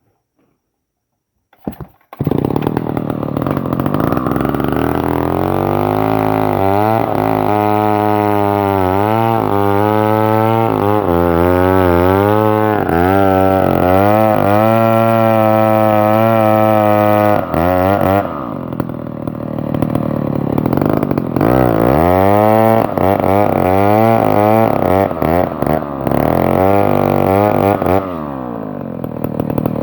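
Stihl 070 large two-stroke chainsaw engine coming in about two seconds in and being revved up and down over and over, settling lower twice in between, while running on a fuel mix with too much oil.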